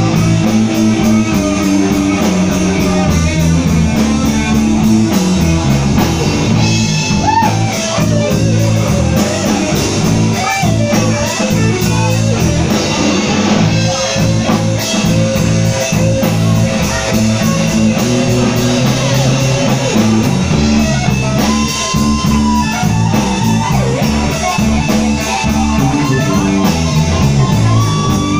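Blues band playing live: electric guitar over bass and drum kit, with the lead line bending up into notes and holding some of them for several seconds.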